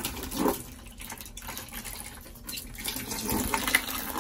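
Water pouring from the open end of a disconnected braided washing-machine supply hose and splashing into a bucket, louder in the last second or so. It is the water left in the line after the house supply was shut off.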